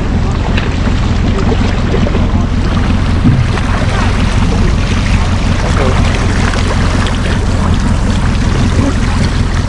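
Zodiac inflatable boat's outboard motor running steadily under way, with wind rushing over the microphone.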